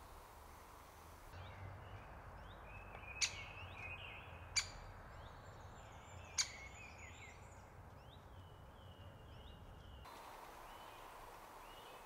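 Faint woodland birdsong of short, falling chirps, with three sharp clicks one to two seconds apart in the middle.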